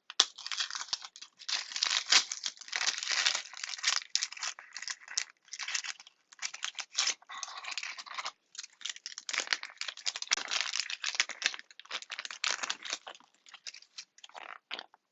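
Packaging of a blind-pack fidget toy being crinkled and torn open by hand, in long irregular stretches of crackling with short pauses.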